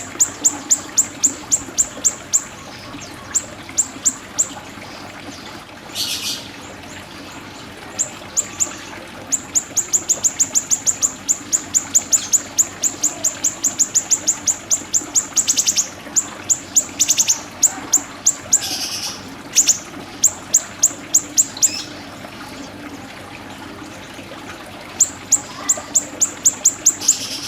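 Siri-siri bird song: fast trains of sharp, high chirps, about six a second, in runs of several seconds with short pauses between them.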